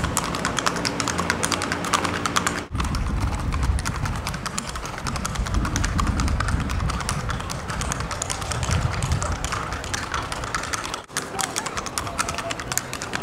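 Hooves of a Paso Fino mare striking a flagstone path in quick, even four-beat footfalls as she is ridden at the gait. The sound drops out briefly twice.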